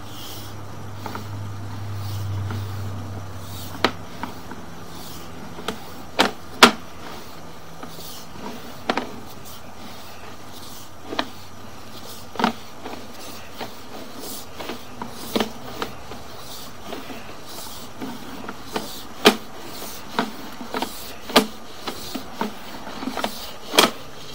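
Sewer inspection camera being pulled back through the drain line: irregular sharp clicks and knocks, roughly one every second or two, from the push cable and reel, over a low hum that fades after the first few seconds.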